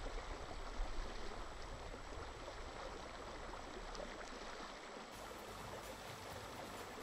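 River current flowing: a steady rush of moving water.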